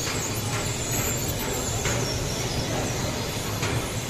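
Airport baggage carousel running: a steady low hum from the belt drive, with a few faint clacks from the moving rubber slats, over the general noise of the baggage hall.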